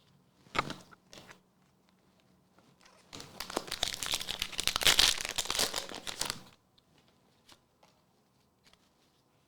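Foil Pokémon booster pack wrapper being torn open and crinkled, a dense crinkly stretch of about three seconds in the middle, after a single short rustle near the start.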